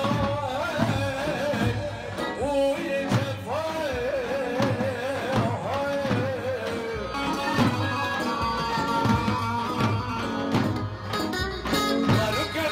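Kurdish folk dance music: a man sings an ornamented, wavering melody into a microphone over a plucked long-necked lute and the steady beat of a large drum.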